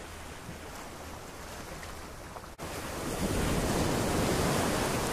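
Ocean surf breaking and washing up the sand, with wind buffeting the microphone. After a brief dropout about halfway through, the wash of the surf grows louder.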